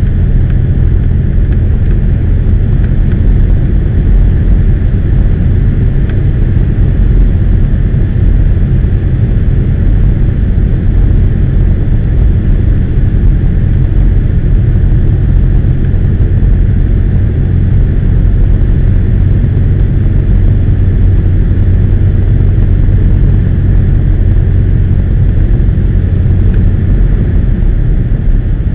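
Cessna 172's piston engine and propeller running with a steady, unbroken low drone, heard from inside the cockpit on final approach to land.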